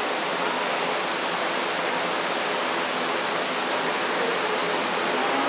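Large electric livestock-barn fans running with a steady rushing noise.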